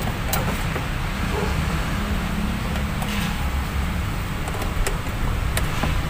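Faint clicks and small knocks of hands and a hand tool working the fasteners of a car's plastic air cleaner housing as it is refitted, over a steady low background hum.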